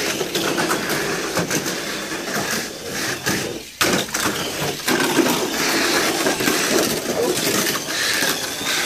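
Box-stock Tamiya Mini 4WD cars racing along a plastic track: a dense, rapid clatter of the small cars' rollers and plastic bodies rattling against the track walls, with a brief lull a little before the halfway point.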